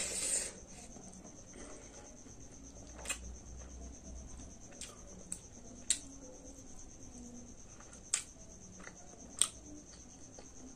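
Close-miked mouth sounds of a person eating rice and fried potato by hand: a short rustle as food goes into the mouth, then soft chewing with sharp wet mouth clicks every second or two. A steady high-pitched tone runs underneath.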